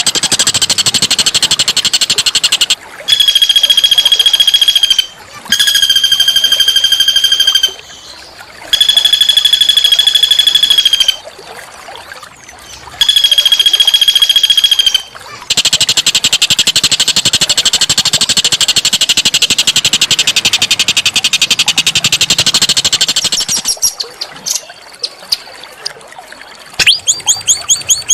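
A small songbird's harsh song of the kind used to train murai batu: dense buzzy rattling trills alternating with four long, flat, ringing notes of about two seconds each, then scattered chirps and a quick run of sharp notes near the end.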